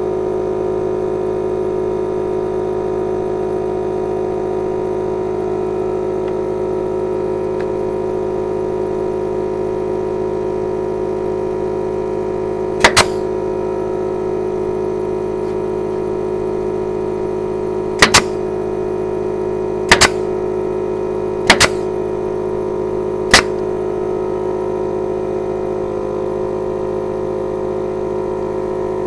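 Sharp shots of a fastener gun driving staples or nails into the wooden lattice, about five times, some doubled, over a steady motor hum.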